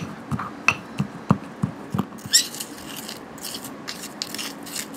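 Metal spoon crushing dry dirt against the inside of a small metal bowl to grind it finer: a quick series of knocks, about three a second, for the first two seconds, then gritty scraping and stirring.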